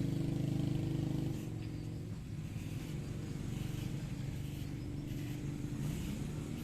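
A vehicle engine running with a steady low hum, which drops in level about a second and a half in.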